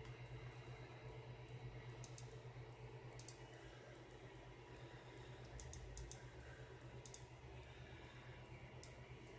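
Near silence: a steady low hum with a handful of faint, separate clicks.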